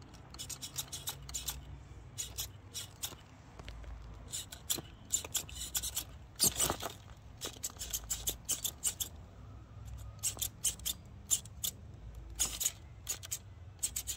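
RC rock crawler's tyres and chassis scrabbling and scraping over rocks, with many irregular sharp clicks, the loudest about halfway through, over a low hum.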